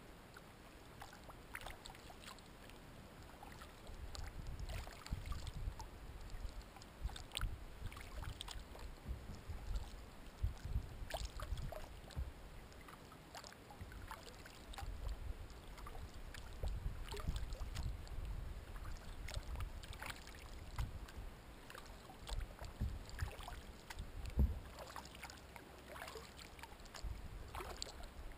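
Kayak paddling on calm water: the paddle blades dip in with small splashes and drips, over a low rumble that swells and eases.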